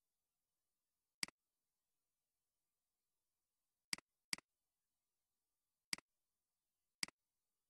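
Computer mouse clicks: five sharp single clicks against near silence. One comes about a second in, two come in quick succession around four seconds in, and two more follow near the end.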